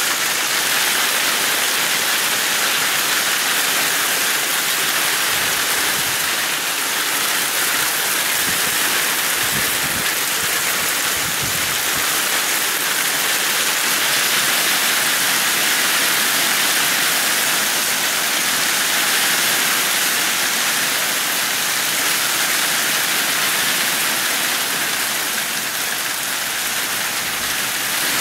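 Rain falling steadily, a dense, even hiss with no separate drops or thunder standing out.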